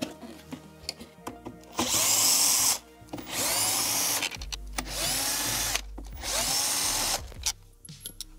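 Cordless drill-driver running in four short bursts of about a second each, its motor whine rising and then settling each time as it drives out screws holding the fuse box panel. Light clicks and knocks of handled plastic parts come before the first burst.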